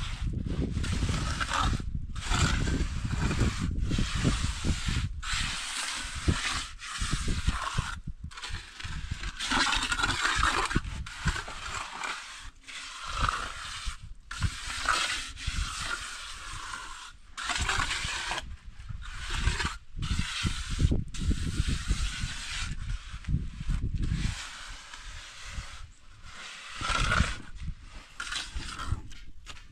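Steel trowel scraping and smoothing wet cement mortar onto a concrete water-tank rim in repeated, irregular strokes with short pauses between them, and a low rumble that comes and goes underneath.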